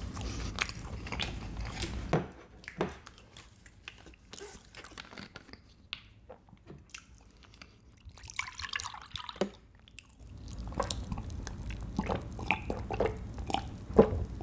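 Close-miked chewing and mouth sounds with small clicks. About two-thirds of the way in, a drink is poured from a plastic bottle into a small glass, and more small clicks follow as he drinks.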